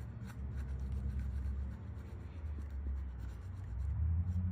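Glue eraser rubbed lightly back and forth on a sneaker, scrubbing off dried glue residue, with a faint scratchy rubbing over a steady low hum.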